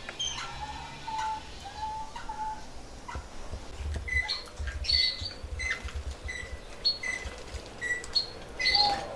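Caged canaries calling with short, repeated high chirps, a few lower calls early on, and scattered light clicks and taps from the birds moving in their cages. The birds are coming into breeding condition.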